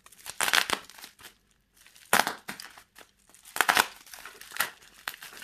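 Black plastic parcel wrapping crinkling and tearing as a utility knife slices it open, in several short bursts.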